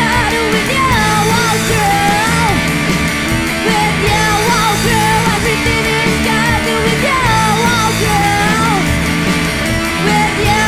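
Garage punk band recording: a woman singing over loud electric guitar, bass and drums.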